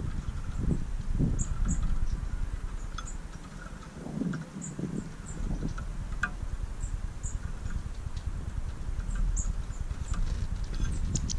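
European goldfinches feeding at a metal mesh seed feeder: scattered light clicks and taps of beaks on the mesh and seed, with short high chirps, over a steady low rumble.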